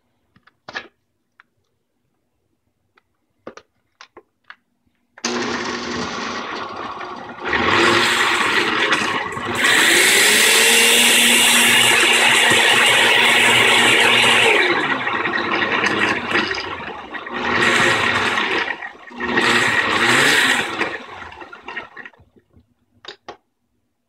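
Oster BRLY07 reversible blender's motor blending green juice in its glass jar. It starts about five seconds in, steps up in speed, whirs loudest for about five seconds with its pitch rising and then falling, runs in a few shorter bursts, and stops near the end. A few faint clicks come before it starts and after it stops.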